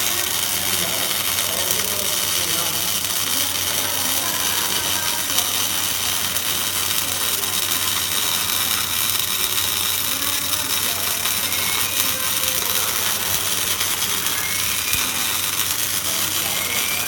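Electric arc welding: a steady crackling sizzle that keeps going without a break, over a low electrical hum.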